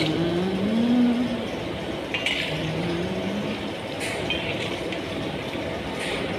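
Samosas deep-frying in hot oil in a kadai: a steady bubbling sizzle, with a metal slotted spoon clinking against the pan about three times as they are stirred.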